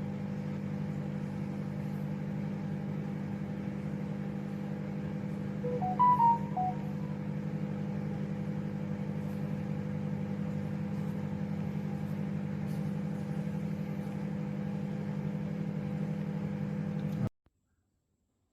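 Sharp microwave oven running, a steady mains-pitched hum from its magnetron transformer and fan. A few short beeps sound about six seconds in, and the hum cuts off abruptly near the end.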